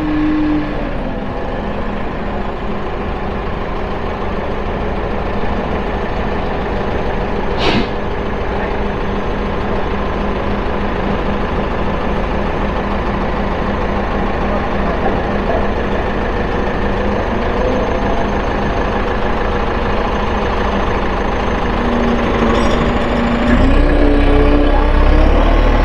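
A large engine running steadily at idle, with one short sharp click about eight seconds in. Near the end it revs up, rising in pitch and getting louder.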